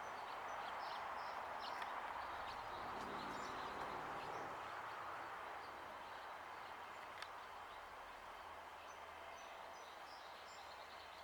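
Steady outdoor background noise with faint, short high-pitched bird chirps scattered through it, most of them in the first couple of seconds and again near the end.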